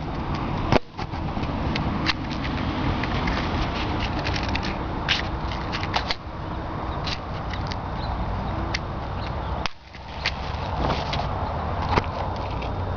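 Steady rustling handling noise with scattered short scrapes and clicks as a box of matches is handled close to the microphone. The sound drops out briefly twice, about a second in and near ten seconds.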